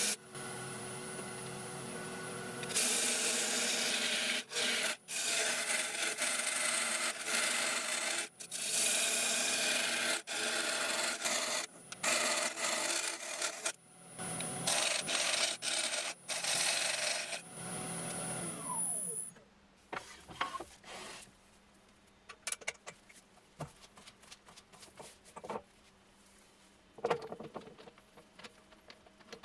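Wood lathe running, with a tool scraping and rasping against the spinning ash blank in repeated strokes, each a second or so long. About two-thirds of the way through, the motor whine falls away as the lathe spins down, and only a few light handling clicks and knocks remain.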